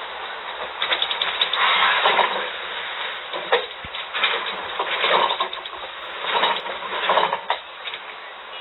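Boxed refrigerator being handled and moved, with irregular scraping and rattling in uneven bursts.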